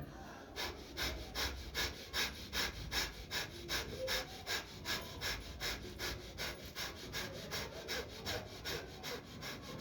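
Kapalbhati breathing: a man's forceful nasal exhalations in a quick, steady, evenly spaced rhythm.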